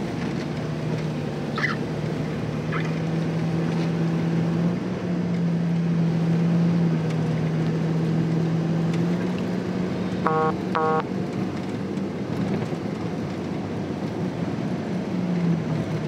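Steady engine and road drone inside the cabin of a 2002 Jeep Wrangler TJ driving on a snowy road, its pitch rising a little about nine seconds in. Two short electronic beeps sound about ten seconds in.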